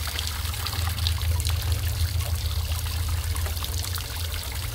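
Water spraying and pattering down in droplets, a steady hiss dotted with small drip ticks, over a low steady hum.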